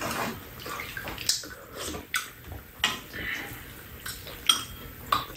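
Metal spoon and chopsticks clinking against ceramic bowls and a frying pan during a meal: about five sharp clinks, roughly a second apart.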